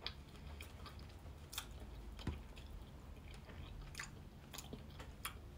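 Faint close-up chewing of a soft strawberry and chocolate crepe, with scattered small wet mouth clicks.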